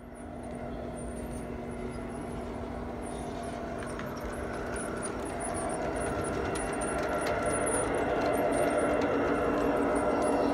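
Diesel engine sound from the onboard sound system of an MTH Gauge One SD70ACE model locomotive: a steady drone that grows louder as the model approaches, with light clicking over it.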